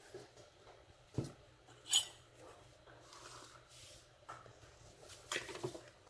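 Faint, scattered clicks and taps of small metal tools and a lock body being handled on a workbench: a dull tap a little after a second in, a sharper click about two seconds in, and a short cluster of clicks near the end.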